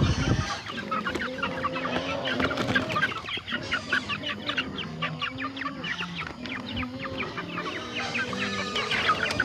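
Two-month-old crossbreed Asil chickens clucking and peeping in a dense run of short calls, with a low thump right at the start.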